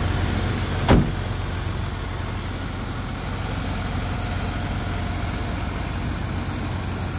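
Volvo FL truck's diesel engine idling steadily; about a second in, a single loud slam, the cab door being shut.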